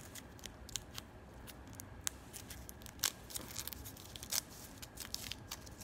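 Aluminium foil being unfolded by hand: a run of irregular crinkles and crackles, a few sharper ones standing out.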